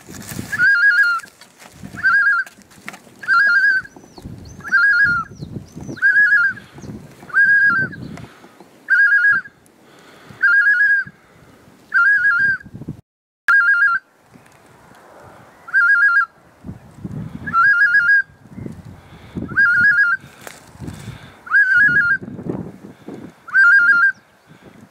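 Goose honks: a short, high, clear call repeated very evenly about once a second, with fainter low noise between the calls.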